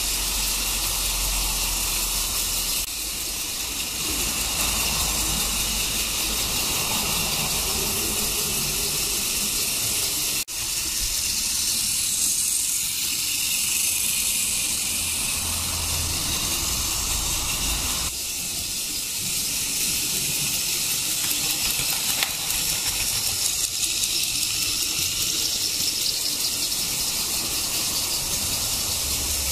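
Battery-powered TOMY Plarail toy steam trains running on plastic track: a steady rushing whir of the small motor and wheels on the track. The sound shifts abruptly a few times between shots.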